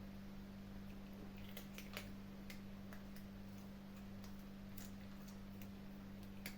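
Kittens chewing their food, a scatter of small irregular crunching clicks, over a steady low hum.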